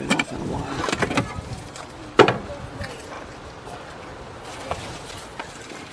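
Clatter of hands and tools working at an electric meter box: a few clicks and knocks over the first second, then one sharp knock about two seconds in.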